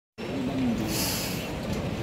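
Crowd hubbub of a busy airport check-in hall: many people talking at once, with general background noise that starts abruptly just after the beginning.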